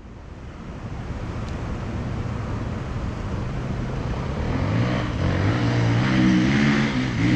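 Enduro motorcycle engine pulling up a steep hill, growing steadily louder as it approaches; in the last few seconds its revs rise and fall.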